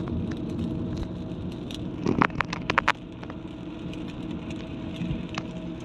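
Steady road and engine noise heard inside a car driving on a wet road, with a quick run of sharp clicks about two seconds in and a few single clicks elsewhere.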